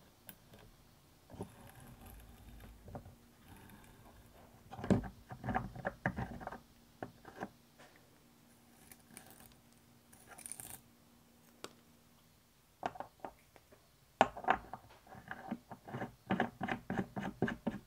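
Small metallic clicks, scrapes and rattles of hand tools and aluminum chips on the workpiece in a drill vise, in two flurries, the second ending in a quick run of ticks.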